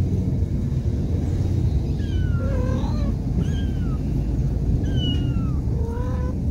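A cat mewing several times in short, high calls that fall in pitch, starting about two seconds in, over a steady low rumble.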